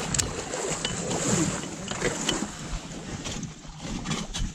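Scattered knocks and rustling from a kayak and gear being handled, over a steady rush of wind.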